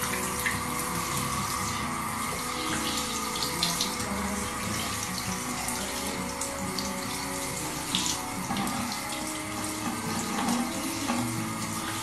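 Water from a shower head running steadily and splashing onto a tiled shower floor, with occasional brief splashes as a young chimpanzee washes its hands in the stream.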